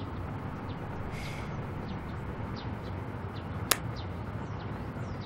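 Faint small birds chirping now and then over a steady background hiss, with one sharp click about three and a half seconds in.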